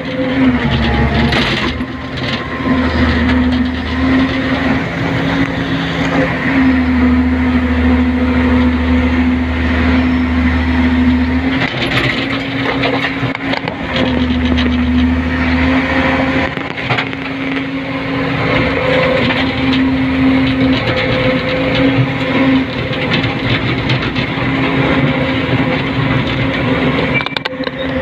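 Hydraulic excavator's diesel engine and hydraulics running, heard from inside the cab as the machine works. A deep low hum swells and drops away every few seconds over a steady engine note, with a few short knocks.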